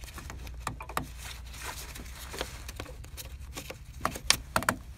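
Pliers squeezing a spring hose clamp on a coolant hose: scattered small metallic clicks and scrapes, with a few sharper clicks about four seconds in.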